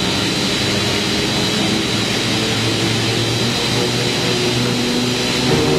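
Spindle veneer peeling lathe running: a steady mechanical drone with a high hiss and a thin, constant whine.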